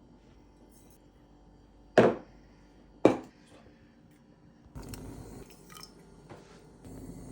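Kitchen preparation sounds: two sharp knocks about a second apart, as of kitchenware struck or set down hard, then a steady low noise that starts about five seconds in.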